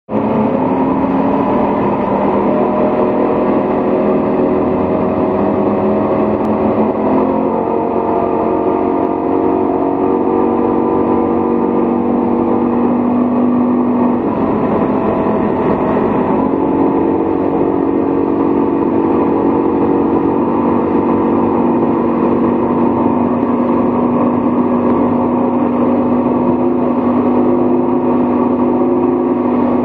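Motorboat engine running at speed, a steady drone whose pitch shifts a few times, over rushing water and wind.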